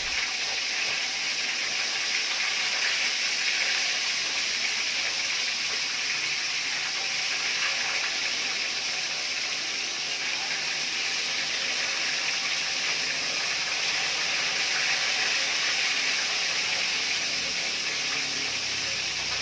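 Galunggong (round scad) frying in hot oil in a wok, a steady sizzling hiss as the fish browns.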